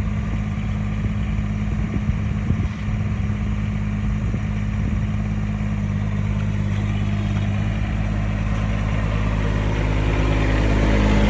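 Kubota diesel engine of a mini excavator idling steadily, a few light knocks about two seconds in, getting louder near the end.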